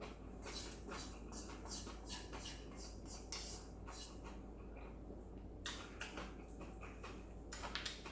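A person eating noodles close to the microphone: a run of short, irregular wet chewing and mouth sounds, with a few louder ones about six seconds in and near the end.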